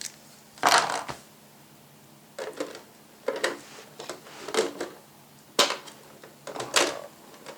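Items being handled during an unboxing: about six short bursts of rustling and clattering, a second or so apart.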